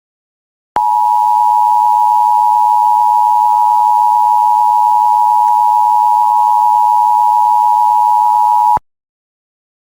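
Emergency Alert System attention signal: the two-tone 853 and 960 Hz alert tone, starting about a second in and held steady for about eight seconds before cutting off sharply. It marks the start of an EAS alert, here the required monthly test.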